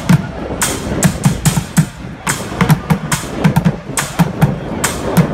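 Bucket drumming on upturned plastic buckets: a fast rhythm of deep thuds from the bucket bottoms mixed with sharp, cracking strokes.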